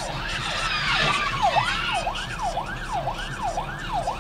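Police car siren wailing in quick rising-and-falling sweeps, about two a second, with a brief harsher noise over it about a second in.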